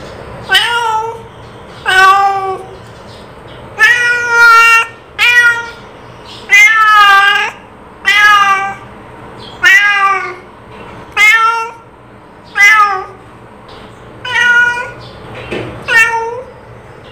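A domestic cat meowing over and over, about a dozen separate meows with short pauses between them, some drawn out and wavering in pitch.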